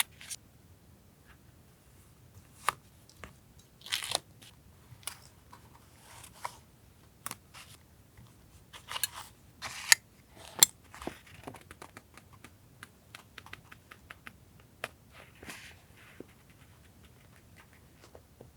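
Paper and stationery being handled for journal collage: scattered light taps and clicks, with a few short rustling, crinkling bursts of paper, the loudest about four seconds in and around nine to ten seconds in.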